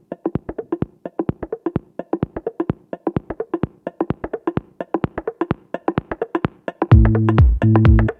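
Electronic background music: a quick, even pattern of short plucked or struck notes, joined near the end by loud, deep sustained synth notes.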